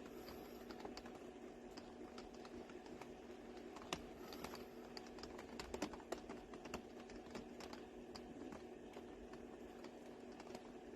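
Rain on a camper van's roof: scattered, irregular taps of drops, busiest around the middle, over a steady low hum.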